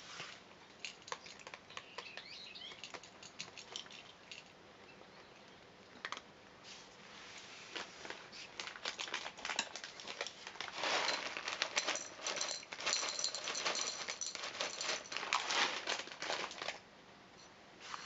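Cats crunching dry kibble from a bowl: a rapid, uneven run of small crisp crunches and clicks, denser and louder in the second half.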